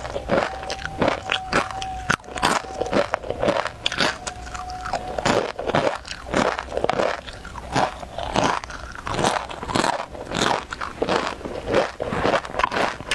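Crunching and chewing of a crisp snack, picked up close by a clip-on microphone: a dense run of sharp, irregular crunches, several a second.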